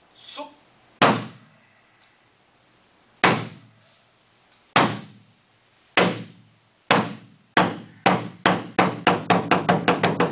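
Taiko drum struck with wooden sticks. Single booming strikes start more than a second apart, then come faster and faster until they run together into a fast roll near the end, the accelerating opening known as an oroshi.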